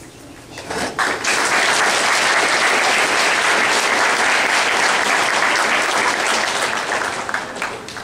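Audience applauding: the clapping swells up about a second in, holds steady, and dies away near the end.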